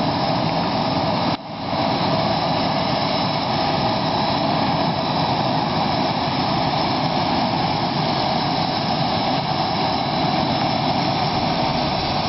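Boeing 737-500 turbine running steadily: an even loud rush with a thin high whine held throughout. It dips briefly about a second and a half in.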